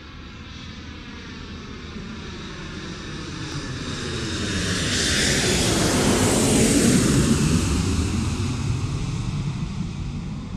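Jet airliner flying past: the engine noise swells to its loudest about six to seven seconds in, then fades away.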